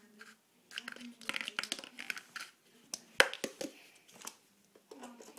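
A cat scuffling with a clear plastic tub on a tile floor, making rustling and scraping noises. A cluster of sharp clicks and knocks comes about three seconds in, the loudest a single knock of plastic on tile.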